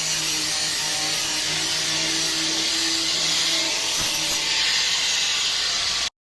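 Loud, steady machine hiss, like an air tool or motor-driven machine running, with a faint hum under it; it cuts off suddenly about six seconds in.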